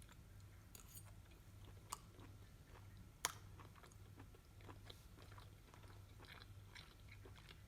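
Faint, irregular crackling and ticking over a low hum, with two sharper clicks about two and three seconds in.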